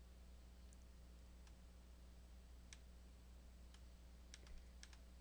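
Near silence with faint, scattered computer mouse clicks, several in quick succession near the end, over a steady low electrical hum.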